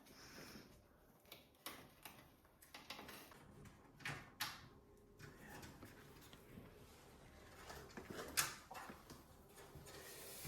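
Faint, scattered clicks and knocks of small parts and cables being handled inside a PC case, with the sharpest click about eight seconds in.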